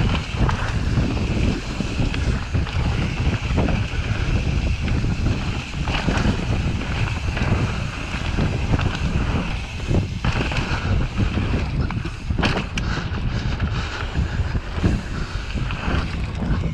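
Mountain bike ridden fast down a dirt trail, heard through an action camera's microphone: steady wind buffeting and low tyre rumble, with irregular rattling knocks from the bike over bumps, a cluster of them about twelve seconds in.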